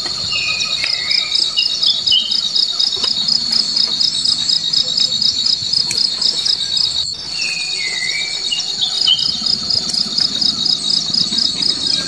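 Steady high-pitched cricket-like insect trill with a fast, even pulse. It breaks off for an instant about seven seconds in. A few short falling chirps come over it twice, near the start and again after the break.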